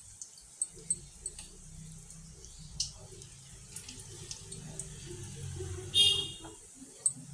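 Besan-battered brinjal slices deep-frying in hot oil in a kadai: a steady sizzle with small scattered pops and crackles as more slices go in. About six seconds in there is a brief, louder sharp sound.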